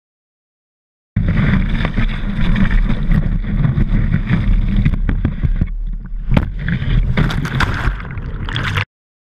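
Wind buffeting and water spray rushing over a wakeboard-mounted action camera, a loud rumbling noise with a few sharp knocks and splashes in the second half. It starts abruptly about a second in and cuts off just before the end.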